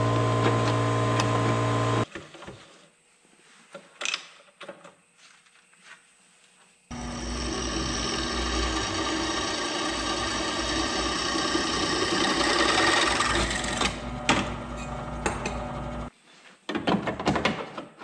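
A bench drill press drilling through a steel angle-iron piece. It runs steadily for about nine seconds and stops abruptly about sixteen seconds in. Before it, a steady machine hum cuts off about two seconds in, followed by light metal clicks and knocks as the piece is handled.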